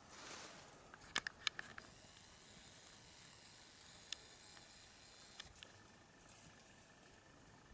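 Quiet footfalls and brushing vegetation on a rocky forest trail. A soft rustle at the start, then a quick run of sharp clicks and snaps about a second in, followed by a few scattered single clicks and a faint rustle near the end.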